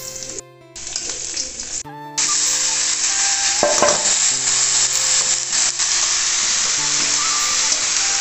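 Onions and chopped paddy-straw mushrooms sizzling in hot oil in a steel kadai on a gas burner. The sizzle gets clearly louder about two seconds in, once the mushrooms are in the pan.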